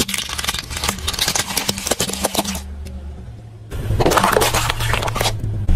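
A car tyre rolls over a row of plastic disposable lighters, giving a quick run of sharp cracks and crackles. About four seconds in, it crushes instant-noodle cups with a louder, denser crunch. The car's engine hums steadily underneath.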